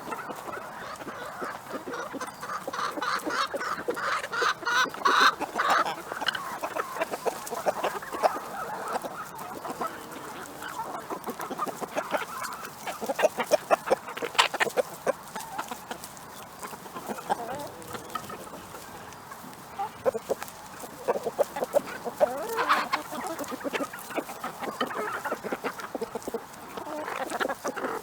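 A flock of laying hens clucking as they crowd around a food treat, many short clucks throughout, with a busier run of rapid calls about three to six seconds in.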